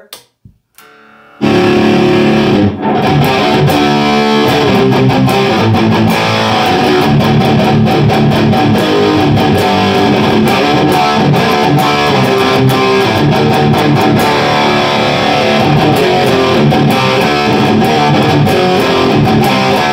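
Electric guitar (ESP LTD Phoenix) played through an Orange Dark Terror tube amp head, picked up from the room with no microphone on the speaker cabinet. The playing starts about a second and a half in and then goes on continuously. The amp is freshly repaired and working again.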